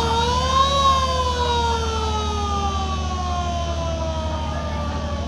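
A river passenger launch's siren sounding one long wail: it winds up to its highest pitch about a second in, then slowly falls away. A steady low engine drone runs underneath.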